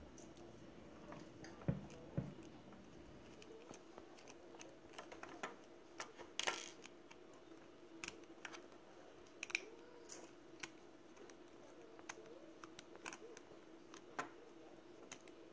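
Faint scattered clicks and scrapes of a small precision screwdriver turning tiny screws out of the plastic canopy of an Eachine E011 tiny whoop drone, with light handling of the frame, over a faint steady hum.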